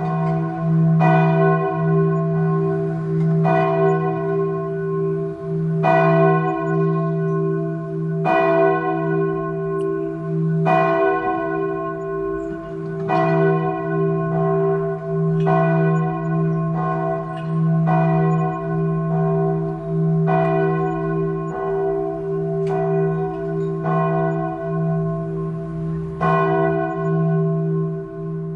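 A single church bell tolling slowly, about one stroke every two and a half seconds. Each stroke rings on and its low hum carries into the next, with a slightly longer pause between two strokes near the end.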